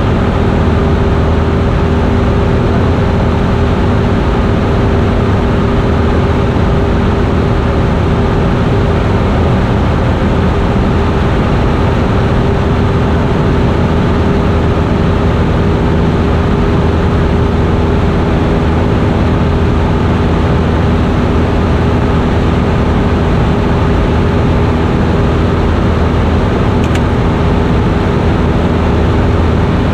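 Single-engine Cessna's piston engine and propeller droning steadily in flight, heard loud from inside the cockpit. The pitch holds constant throughout.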